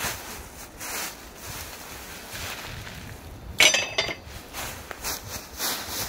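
Dry leaves and forest litter crunching as scrap metal is pulled out of a buried pile by hand, with one loud metallic clink about three and a half seconds in as iron pieces knock together, ringing briefly.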